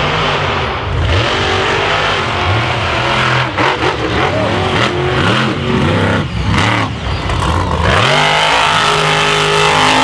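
Racing monster truck engines revving hard, their pitch climbing and falling as the trucks accelerate and lift off, with more than one engine heard at once. About eight seconds in, an engine revs up steeply.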